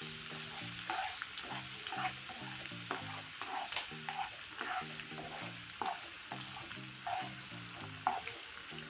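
Chopped shallots, green chillies, garlic and ginger sizzling in hot oil in a nonstick pan while being stirred with a spatula, at the start of sautéing the aromatics. A quick repeating pattern of short low notes runs underneath the sizzle.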